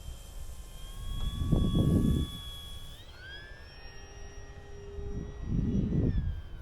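Brushless electric motor and propeller of an E-flite T-28 Trojan RC plane whining in flight, its pitch rising about halfway through as the throttle comes up and dropping again near the end. Two loud low rumbles of wind on the microphone, the first about a second and a half in, the second near the end.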